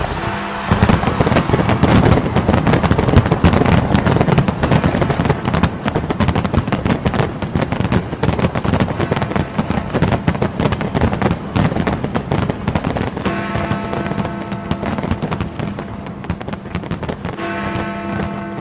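A large aerial fireworks display: a dense, rapid stream of bangs and crackles, loudest in the first half and thinning out toward the end, with music playing underneath and sustained chords coming through near the end.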